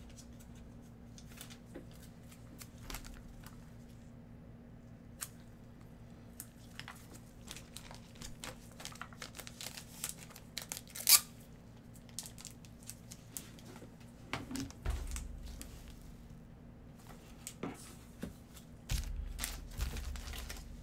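Plastic wrapping and trading-card packaging handled by hand, crinkling and tearing with scattered light clicks and one sharper click about halfway through. Near the end the handling grows busier as gloved hands take hold of a sealed card box.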